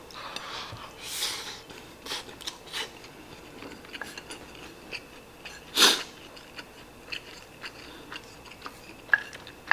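Fried rice being eaten: chewing, with light clicks and scrapes of a spoon on the plate. One louder, short rush of noise about six seconds in.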